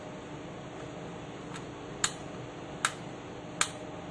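Rocker switches on a Frontline extension socket clicking: three sharp clicks less than a second apart in the second half, over a steady faint hum.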